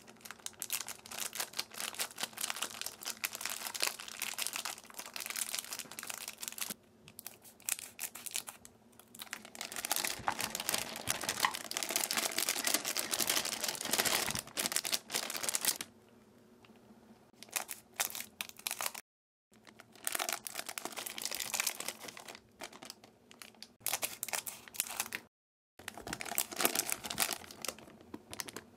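Foil chocolate-bar wrappers crinkling and tearing as they are opened by hand, in stretches of dense crackling with short breaks, with slabs of chocolate tipped into a clear measuring cup.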